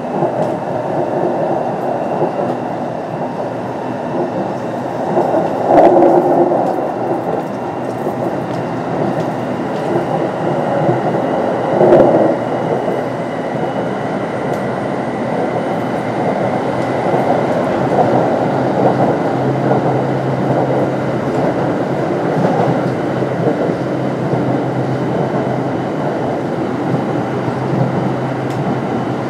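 Kintetsu 9020 series electric train (Mitsubishi IGBT-VVVF) heard from inside the car while running at speed: a steady rumble of wheels on rail with faint steady high tones above it. Two louder knocks come about six and twelve seconds in.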